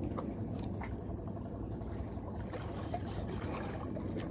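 Steady low wash of sea water against a concrete breakwater, with a few faint clicks now and then.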